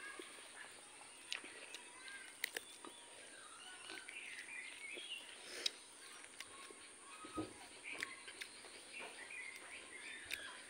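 Birds chirping in the background, with the sharp clicks and smacks of someone eating by hand from a steel plate scattered throughout.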